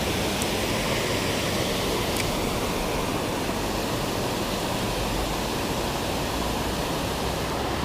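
Trout stream water rushing, a steady even rush with no change.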